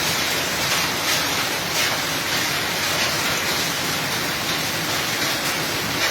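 Heavy rain mixed with hail pelting down in a thunderstorm: a dense, steady hiss with scattered sharper hits.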